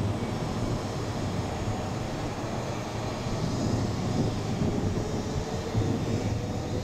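Taiwan High Speed Rail 700T trainset pulling slowly away from the platform: a steady low rumble with a faint whine that creeps slightly upward in pitch from about halfway through as the train gathers speed.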